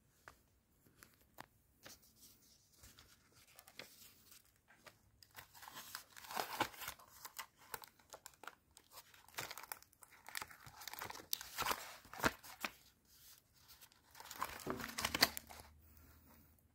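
Paper pages of a thick paperback book rustling and crinkling as they are turned by hand, in a series of short bursts that grow louder after the first few seconds.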